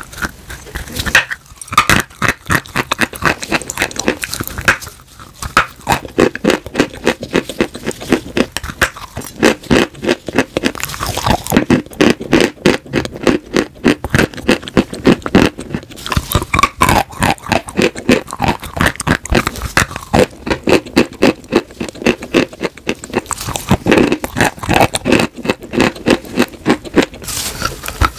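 Close-miked crunching and chewing of chunks of white chalk: a fast, unbroken run of crisp crunches and crumbling clicks as pieces are bitten off and ground between the teeth.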